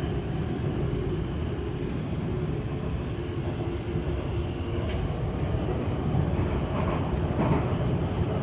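Passenger train running: a steady low rumble with a faint hum, heard from inside the carriage.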